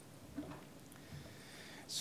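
Quiet pause in a small conference room: faint room tone, with one soft, brief sound about half a second in.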